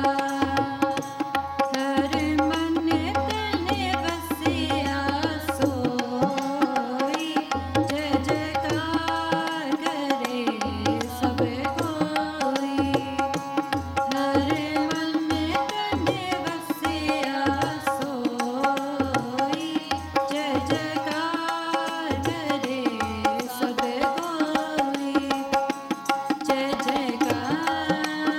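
Sikh shabad keertan: women's voices singing a Gurbani hymn together, with a hand-pumped harmonium (vaja) playing the melody and a tabla keeping time underneath.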